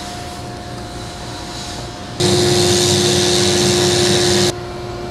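A steady background hum, then for about two seconds a much louder steady mechanical whirring noise with a low droning tone that starts and stops abruptly.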